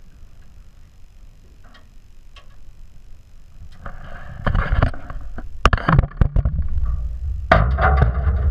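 Water splashing hard in irregular bursts as a large cod thrashes at the surface beside the boat while it is being landed, with a few sharp knocks. The first half is quiet; the splashing starts about halfway in.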